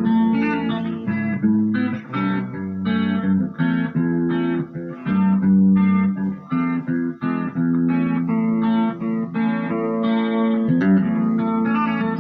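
Electric guitar played through a Marshall MG15GFX 15-watt combo practice amp on its clean channel with spring reverb on: a steady run of sustained notes and chords.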